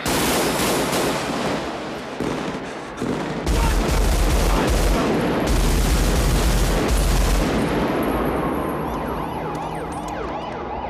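Sustained automatic fire from M16-style assault rifles, rapid shots running together into a dense barrage that grows heavier and deeper about three and a half seconds in.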